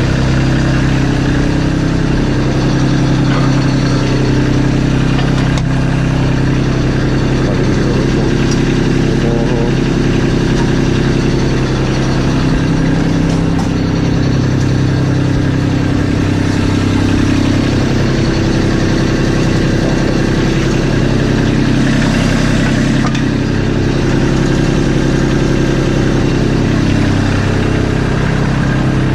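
Kubota LX2610 tractor's three-cylinder diesel engine running steadily, its pitch shifting slightly a few times.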